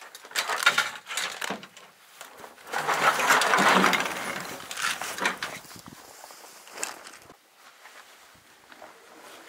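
Gear handled in a pickup truck bed: a plastic bag of water bottles and a backpack rustling as they are moved, with a few light knocks. The longest, loudest rustle comes about three to four seconds in, and it quietens after about seven seconds.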